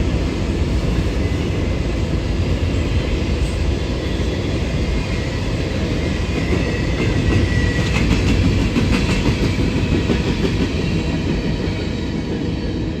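A train running past with a steady heavy rumble. A thin high squeal builds to about eight seconds in, and a run of sharp clicks follows about eight to nine seconds in.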